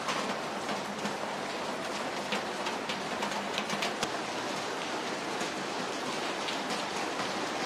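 Steady rain falling: an even hiss with many small, sharp drop hits scattered through it.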